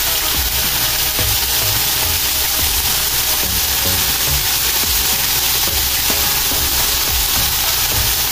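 Chicken breast pieces sizzling steadily in a little oil in a nonstick frying pan, under background electronic music.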